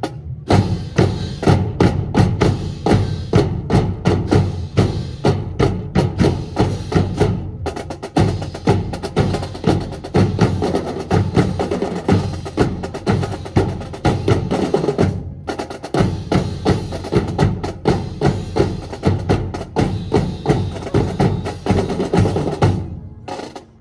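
Marching drums of a drill team playing a cadence with a steady, driving beat and sharp stick strokes, stopping abruptly near the end.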